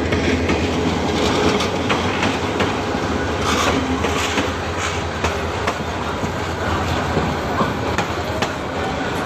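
A diesel-hauled passenger train passes close by. The locomotive's low hum is heard at first, then the coaches roll past with a steady rumble and the wheels clacking over the rail joints.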